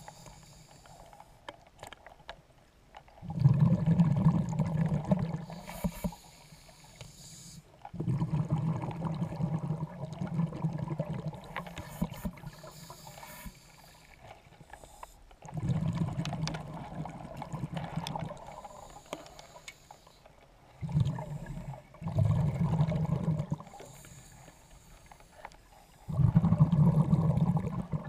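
Scuba diver breathing through a regulator underwater: a short hiss on each inhale, then a low bubbling rumble of exhaled air lasting two or three seconds, repeating about every five to six seconds.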